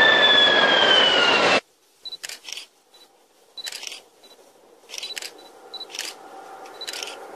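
High-speed electric train passing at speed: a loud rush of noise with a whine that falls in pitch, cut off suddenly after about a second and a half. After that it is much quieter, with scattered short high ticks.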